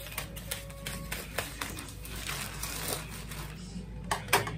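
Scissors snipping through a plastic courier mailer bag: a run of short sharp clicks and plastic crackles, with a louder crinkling burst about four seconds in as the bag is pulled open.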